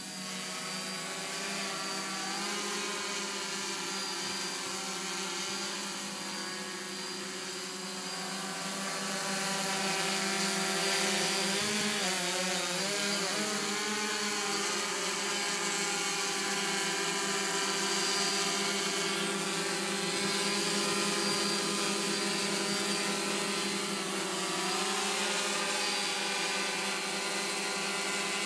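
DJI F550 hexacopter's six electric motors and propellers buzzing steadily in hover, with a pitch that wavers up and down for a couple of seconds about halfway through as the motors speed up and slow down.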